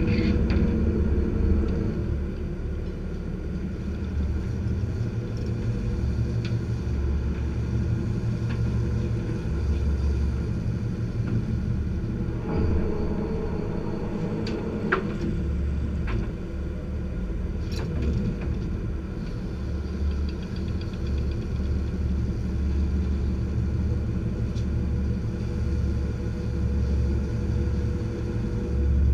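Lobster boat's inboard engine running steadily with a low rumble, with a couple of brief knocks partway through.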